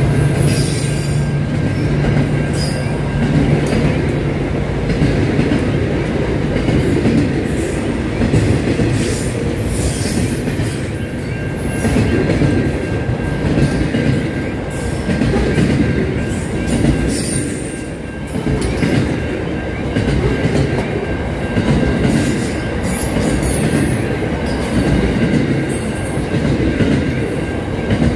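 Freight train wagons rolling past close by: a steady rumble with the wheels clattering and short high squeals from the wheels. A low engine hum from the departing locomotive fades out in the first few seconds.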